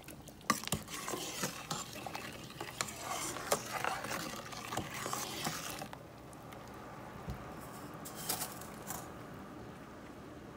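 A spoon stirring sugar into boiling mango juice in a pot, scraping and clinking against the pot with many sharp clicks for about six seconds, then quieter with a few more knocks near the end.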